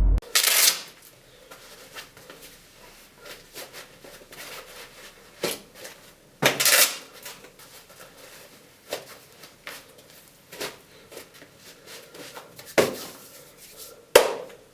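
Irregular knocks and light clatter, with a few louder rustling swishes: about half a second in, near the middle and near the end.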